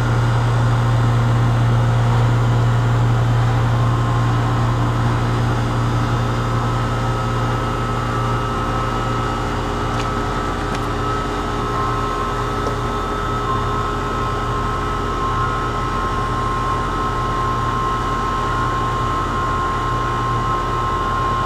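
Goodman air conditioner's outdoor condensing unit running steadily after its contactor is pushed in by hand: the scroll compressor and condenser fan make a loud, steady low hum with a faint whine above it. The unit is running and cooling properly.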